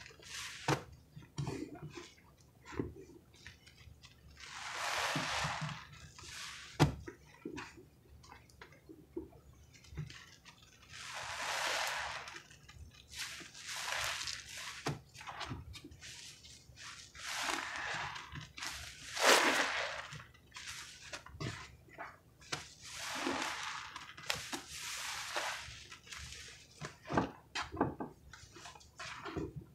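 A lather-soaked sponge squeezed again and again by hand, squelching and crackling. Each squeeze is a wet swell of a second or two, with small pops and drips of foam between them.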